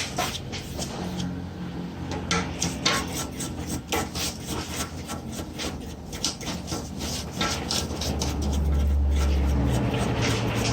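Quick, uneven rubbing and scraping strokes, with a low steady hum joining about eight seconds in and stopping about two seconds later.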